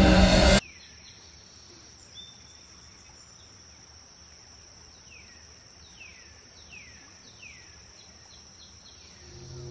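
Background music cuts off abruptly about half a second in, leaving a faint, steady, high-pitched insect drone and a series of short, falling bird whistles. Music swells back in near the end.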